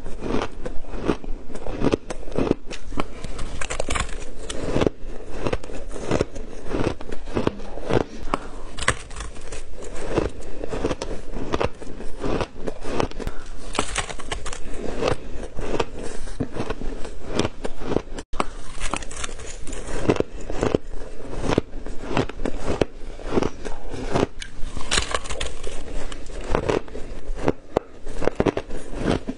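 Shaved ice being chewed and crunched close to a clip-on microphone, mouthful after mouthful, in a dense run of crackly crunches.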